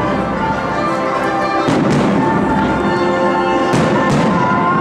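Fireworks display: aerial shells bursting with sharp bangs, a pair about two seconds in and another pair near four seconds, over steady music.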